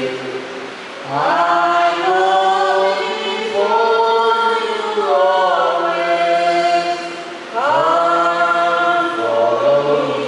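A choir singing a slow sacred chant or hymn with long held notes. A new phrase begins about a second in and another near the end, each after a brief dip.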